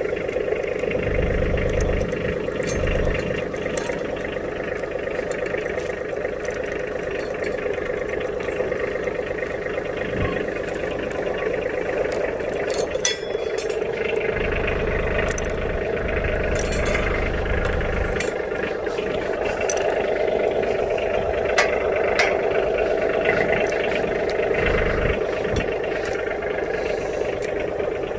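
Tractor engine running steadily, with scattered metallic clinks and rattles.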